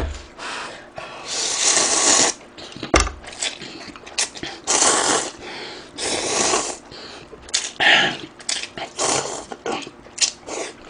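A person slurping instant ramen noodles close to the microphone: several long, hissy slurps with short pauses between, and two low bumps near the start and about three seconds in.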